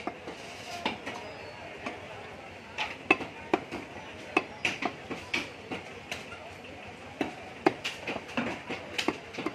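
Heavy butcher's cleaver chopping beef on a wooden stump chopping block: a run of sharp, irregular knocks as the blade strikes through the meat into the wood, sometimes two or three in quick succession.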